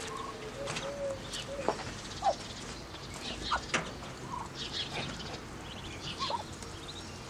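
A brood of ducklings peeping: many short, high chirps, irregular and often several a second, with a few softer, lower notes among them.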